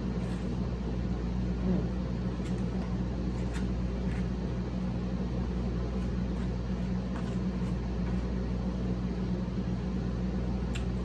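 A steady mechanical hum with a few faint, scattered clicks of eating.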